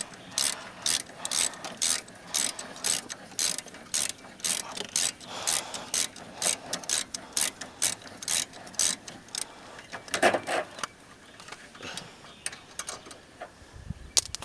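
Socket ratchet clicking in quick, even strokes, about two or three a second, as a 9/16 brake caliper bolt that has just broken loose is backed out. The ratcheting stops about nine or ten seconds in, leaving a few scattered lighter sounds.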